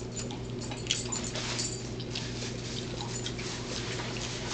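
Rustling and light crackling clicks as a crumpled white wrapper is handled, over a steady low electrical hum.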